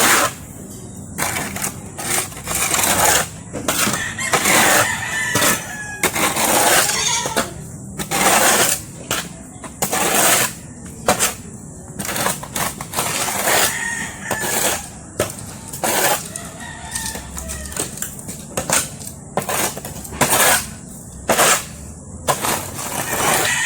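A shovel scraping repeatedly across a pig pen's floor, pushing manure out in stroke after stroke, about one scrape every second. Chickens cluck and a rooster crows faintly behind it.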